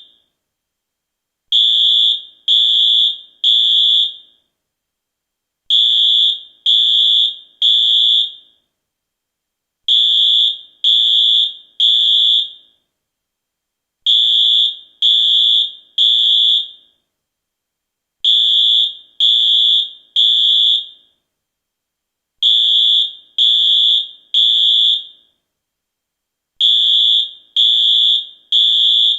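US fire alarm sounding the temporal-three evacuation signal: a loud, high-pitched beep three times in a row, then a pause, the cycle repeating about every four seconds.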